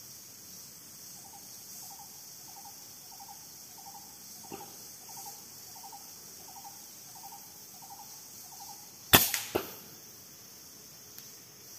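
A PCP air rifle fires: one sharp crack, then a second sharp knock about half a second later. Before it, a bird calls a short note over and over, about every 0.6 seconds.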